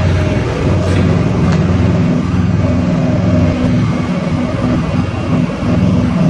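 Kenworth W900 semi truck's diesel engine idling steadily.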